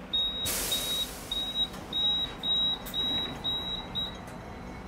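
A string of about eight short, high-pitched electronic beeps, roughly half a second apart, from a beeper aboard a Hong Kong tram at a stop. A short hiss of air comes near the start. The beeps stop about four seconds in.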